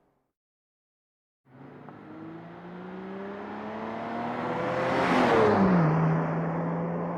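A car accelerating past, starting about a second and a half in: the engine note climbs as it approaches and grows louder, then its pitch drops sharply as it goes by, and it carries on at a steady lower note while moving away.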